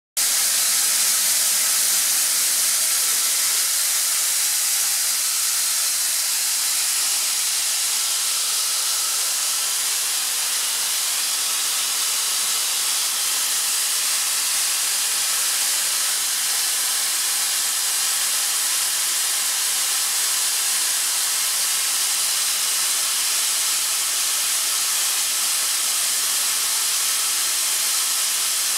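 Atlas Copco ZR75VSD oil-free two-stage rotary screw compressor running under its variable-speed drive at about 2650 rpm, giving a steady, even hiss.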